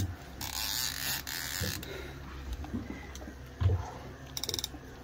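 Fishing reel's drag buzzing, with a short run of rapid clicks near the end.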